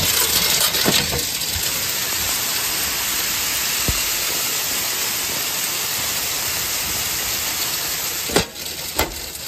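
Steady rushing hiss of shelled corn streaming and spraying inside metal grain-handling equipment through an open door. About eight and a half seconds in, the metal door is pushed shut with a bang and the rush drops to a duller sound; a second knock follows half a second later.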